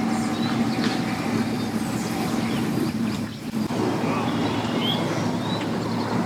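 An engine running steadily under a rushing noise, with a few short bird chirps on top.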